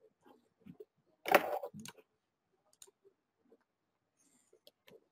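Scattered computer mouse and keyboard clicks as a PowerPoint slideshow is started, with one louder, brief knock about a second in.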